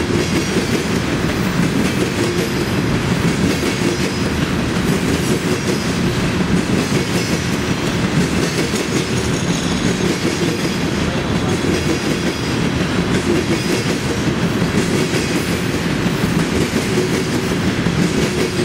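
Loaded freight train of tank cars rolling past at a steady speed, a continuous rumble of steel wheels on rail with clickety-clack over the rail joints. Faint, brief high-pitched wheel squeals come and go.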